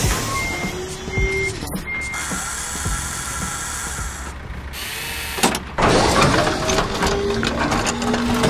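Truck crane sound effects. A reversing beeper beeps about twice a second for the first two seconds, then the crane machinery gives a steady hiss. It gets louder with short whining glides about five and a half seconds in as the hook lifts its load.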